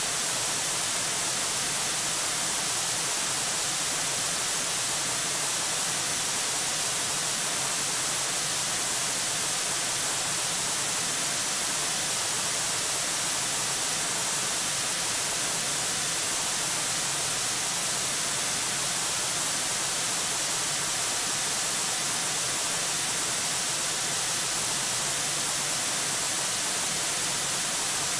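Steady, unchanging hiss of static from the nest camera's microphone.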